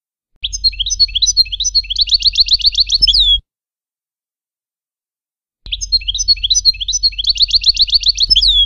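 European goldfinch song in the Levantine 'Shami' style. The same phrase comes twice: a run of quick twittering notes speeds into a fast trill and ends on a falling note. Each phrase starts and stops abruptly, with silence between.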